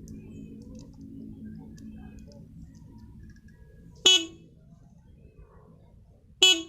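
Motorcycle horn tested with two short beeps, one about four seconds in and one near the end, over a faint low hum.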